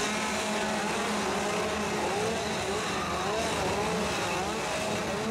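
Several chainsaws revving at once, their engine pitches rising and falling over and across each other.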